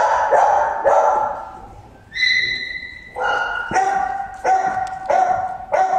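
A dog barking: three barks at the start, a high steady whine lasting about a second, then a regular string of barks in the second half.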